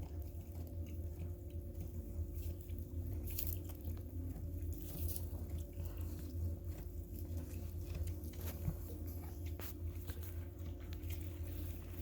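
Soft, slow, rhythmic mouth sounds from a ewe and her newborn Suffolk lamb, with a few faint clicks, over a steady low hum.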